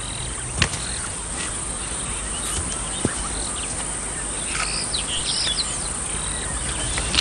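Savanna ambience: insects chirping steadily, with a few short bird calls about the middle and a few brief clicks.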